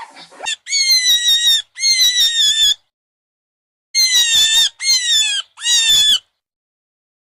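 An animal giving five high-pitched squealing calls, each under a second and dropping slightly in pitch: two close together, then three more after a pause.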